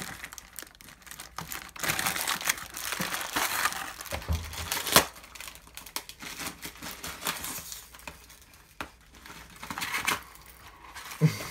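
Crinkling and rustling of plastic packaging as the bag of Beyblade parts is handled and opened, loudest in the first half, with one sharp snap about five seconds in.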